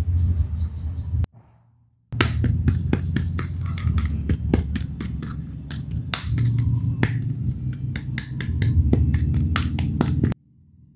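Rapid, irregular clicks and taps of small plastic toy pieces and packaging being handled, over a steady low hum. The sound cuts out briefly just over a second in and stops abruptly near the end.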